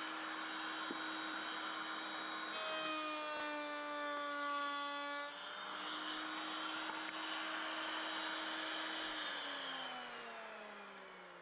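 Woodworking power tool motor running steadily. For a few seconds around the middle its pitch drops slightly under a cut in wood. Near the end it is switched off and its pitch falls as it winds down.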